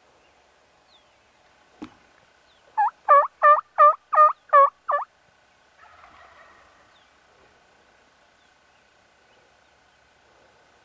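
Turkey call sounding a series of seven loud hen yelps, about three a second, the first one softer. A single sharp click comes just before the yelps.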